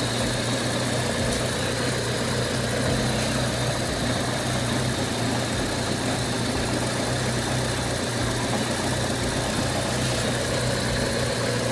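Honda Civic EF's four-cylinder engine idling steadily, run warm so that coolant circulates and air is bled out of the cooling system.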